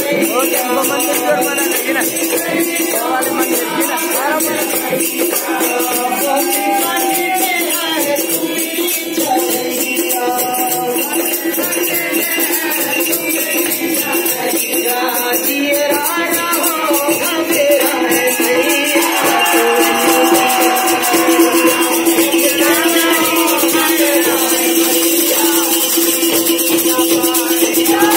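Live devotional folk song to the goddess (Devi geet): voices singing over a steady harmonium drone, with fast rattling percussion keeping the beat.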